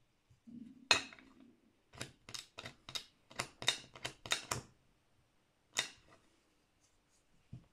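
Vintage Ronson Varaflame gas lighter's metal lid and mechanism clicking as they are worked by hand: one snap about a second in, a quick run of about nine sharp clicks, then a single snap near six seconds as the lid is shut.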